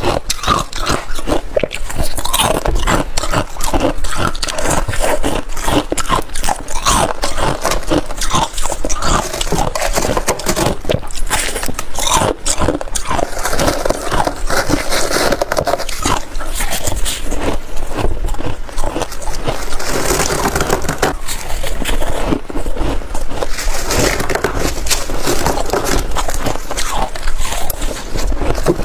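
A person biting and chewing freezer frost and hard ice chunks close to the mouth: dense, irregular crunching and crackling that never lets up.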